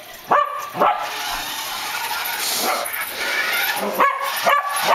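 Dog barking in short, high yips: two near the start and two more about four seconds in.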